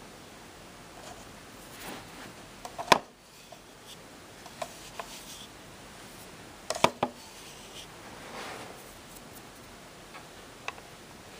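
A few sharp clicks and knocks over a faint steady hiss, the loudest about three seconds in and a close pair near the seven-second mark. The vacuum cleaner's motor is not running.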